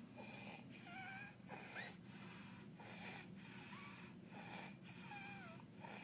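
Baby with croup breathing noisily about once a second, each breath carrying a high-pitched, wavering stridor, the sign of the narrowed upper airway of croup.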